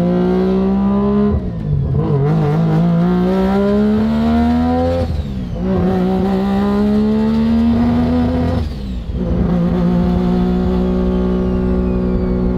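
Street-ported turbocharged Mazda RX-7 rotary engine, heard from inside the cabin, pulling hard on zero boost: its pitch climbs and drops back at upshifts about one, five and nine seconds in, then holds steady at cruise.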